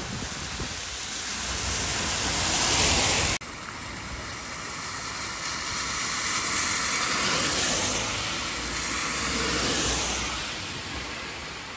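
Tyre and traffic noise on a rain-soaked road: a hiss that swells and fades several times as vehicles pass, broken by an abrupt cut about three and a half seconds in.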